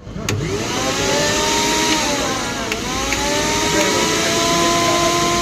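Mixer grinder's electric motor running at high speed with a whine; its pitch dips about halfway through, then climbs back and holds steady.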